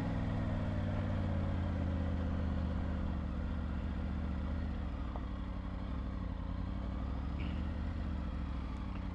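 Triumph Tiger 900 Rally's three-cylinder engine idling steadily.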